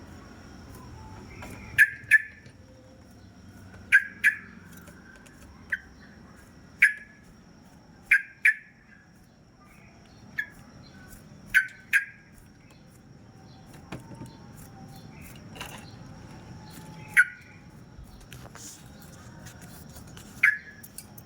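Yellow-vented bulbul (trucukan) giving short, loud, clear calls every second or two, several of them in quick pairs.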